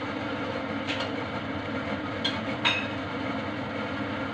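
Steady whir of a kitchen range hood fan, with a few light clicks of kitchenware.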